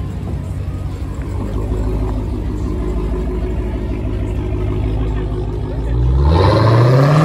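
Dodge Challenger SRT Hellcat Widebody's supercharged V8 running at low speed as the car rolls past. About six seconds in it revs hard, its pitch rising as the car accelerates away.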